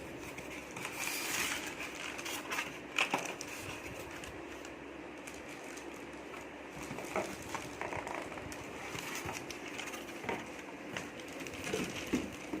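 Rustling and crinkling of packaging with scattered light clicks and knocks while a small water heater is handled.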